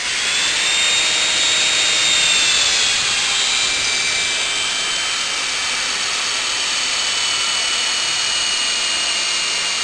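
Heavy-duty air drill running steadily with a high whine over a hiss, turning the oil pump of a Maybach HL230 V12 through a spud to build oil pressure. The whine rises as it spins up and dips a little in pitch about three seconds in, then holds.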